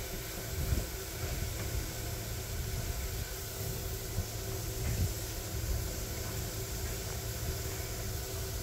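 Narrow-gauge steam tank locomotive standing at rest, steam hissing steadily from around its cylinders over a low rumble, with a faint steady hum and a few soft thumps.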